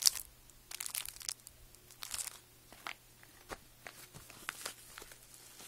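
Plastic zip-lock bags crinkling as they are handled. The rustles come in short clusters: the loudest is right at the start, and they thin out to scattered faint crackles.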